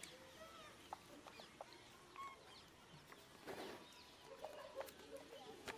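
Faint scattered bird calls: short chirps and clucks, with a few soft clicks among them.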